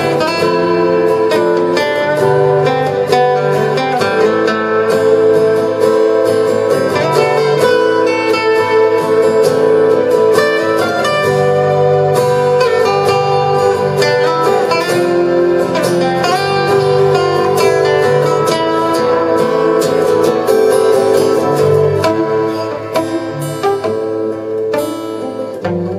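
Instrumental folk-rock played live on two acoustic guitars and a small electronic keyboard: plucked guitar notes over held keyboard tones, getting a little softer near the end.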